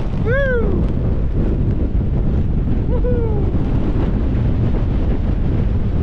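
Strong wind buffeting the microphone in a steady, loud rumble. Over it come two short rising-and-falling vocal whoops, the first just after the start and the second about three seconds in.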